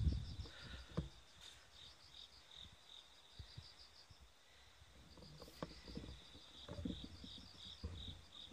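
Crickets singing: rapid repeating high-pitched chirps over a steady high trill. A few low knocks and rustles come in around the start and again in the last couple of seconds.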